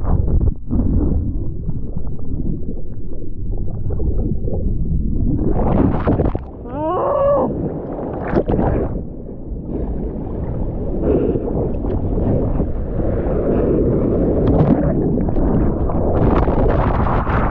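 Churning whitewater heard through a GoPro's waterproof housing as it tumbles underwater in breaking surf: a constant muffled rumble and water rushing against the housing. About seven seconds in comes a brief wavering, warbling sound, and the rushing grows hissier in the second half.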